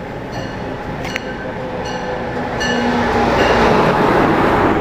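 Amtrak electric-locomotive-hauled passenger train pulling into the platform and past at close range: a rushing rumble of wheels and running gear that grows louder about halfway through as the locomotive and coaches draw alongside.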